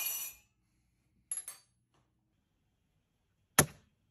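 Hard objects clinking on a stone countertop, ceramic mugs ringing. A clattering ring dies away at the start, a light clink follows about a second and a half in, and a single sharp knock comes near the end.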